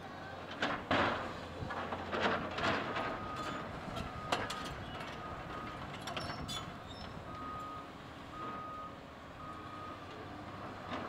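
Komatsu PC200LC hydraulic excavator running while its bucket handles broken concrete, with several loud clatters of debris in the first few seconds. From about three seconds in, a backup alarm beeps steadily about once a second.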